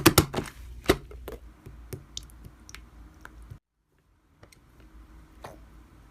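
Slime being pressed and worked by hand, giving a few sharp clicks and squishes in the first two seconds, then fainter scattered clicks. A short dead-silent break falls a little past halfway.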